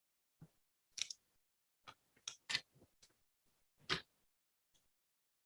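Scattered faint clicks and knocks, about eight short irregular ones, with silence in between; the loudest comes about four seconds in.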